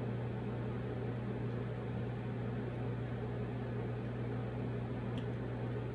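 A steady low hum over an even hiss, with a faint click about five seconds in.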